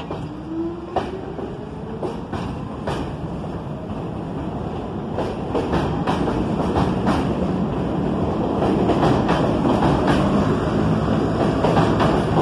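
R46 subway train pulling away from the platform. Its traction motors whine up in pitch as it starts, then the wheels click over the rail joints faster and faster. The running noise grows steadily louder as the cars pass close by.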